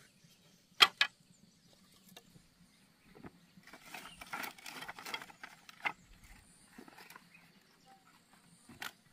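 Two sharp machete chops into bamboo about a second in, followed by the rustling clatter of split bamboo stakes being gathered up into an armful, with a few loose knocks of wood on wood.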